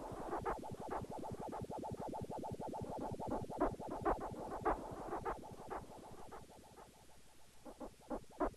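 Song intro made of a dense, irregular crackling and clicking synthesizer texture that thins out and quietens near the end.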